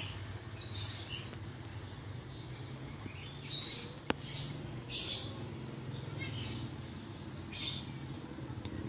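Small birds chirping in short bursts every second or two over a steady low hum, with one sharp click about four seconds in.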